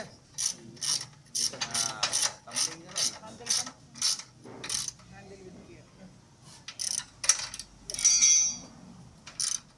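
Hand ratchet wrench being worked on a bolt, clicking in quick repeated strokes about two to three a second, pausing about halfway through. Near the end a few more strokes and a brief high-pitched squeak.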